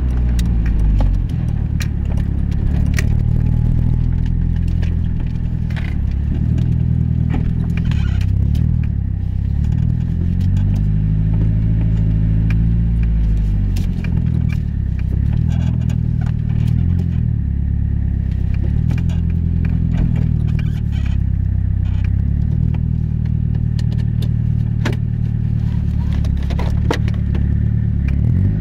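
Car driving along, its engine note rising and falling several times as the revs change, with scattered light clicks and rattles over it.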